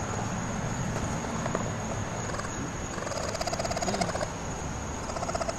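Baby raccoons chittering in short, rapidly pulsing trills that rise and fall in pitch, strongest about three to four seconds in.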